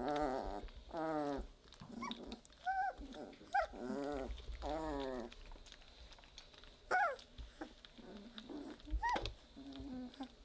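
Three-week-old Weimaraner puppies vocalising: long, wavering whine-growls in the first second and again around four to five seconds, with short high squeals falling in pitch scattered among them. The loudest squeals come at about three and a half seconds and at about seven seconds.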